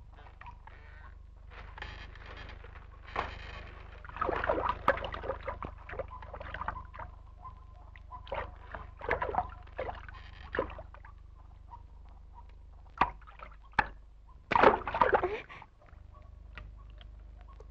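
Wooden poles and dry reed thatch rustling, scraping and knocking as they are handled, with water sloshing at times, over a steady low hum. The loudest burst comes about fifteen seconds in.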